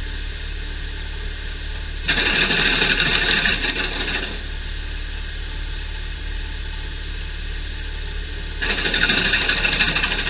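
Gasoline-powered wood chipper running steadily, with two louder stretches of higher, rattling noise: one from about two to four seconds in, and one near the end.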